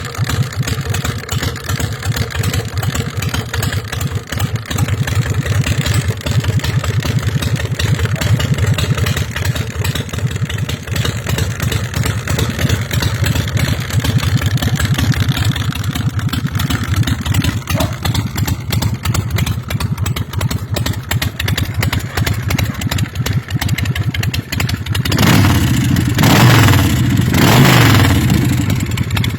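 American Iron Horse Texas Chopper's carbureted 1800 cc V-twin idling with a fast, lumpy pulse, then revved up twice in quick succession near the end.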